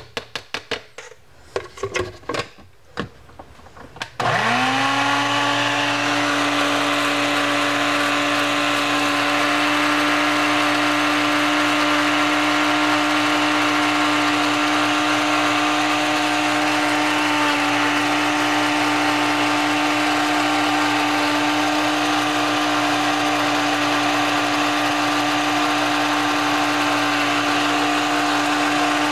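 A few clicks and knocks as the blender jar is handled, then about four seconds in the countertop blender's motor spins up quickly to speed and runs steadily, puréeing bananas with milk and butter that are still somewhat chunky.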